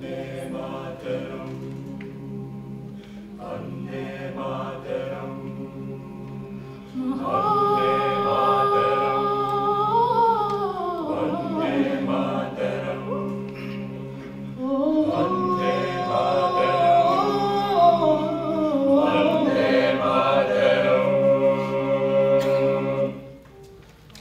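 All-male South Asian a cappella group singing: low voices hold a steady drone-like chord while higher voices carry the melody. The singing swells louder about a third of the way in, dips briefly past the middle, rises again, and stops about a second before the end.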